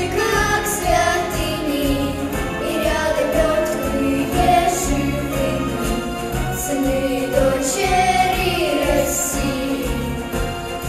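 A young girls' vocal ensemble singing a song together into microphones over an instrumental backing track.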